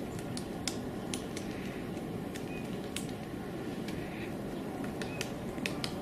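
Great spotted woodpecker pecking at tree bark in search of food: sharp, irregular taps rather than a drumming roll. There are several in the first second and a half, one about three seconds in, and a quick run of taps near the end.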